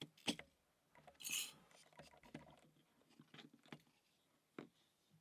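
Faint clicks and light scrapes of small lock pins and springs being handled as a cross-lock cylinder is emptied, with a short hissing scrape about a second in and a sharper click near the end.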